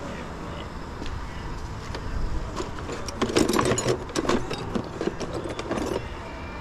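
Pieces of scrap metal clattering and clinking as they are handled and moved, in a dense run of sharp knocks from about two and a half seconds in to near the end, over a steady low rumble.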